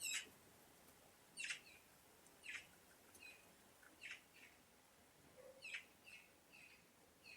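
Birds chirping: about five short, high chirps that fall in pitch, a second or so apart, with softer notes between them.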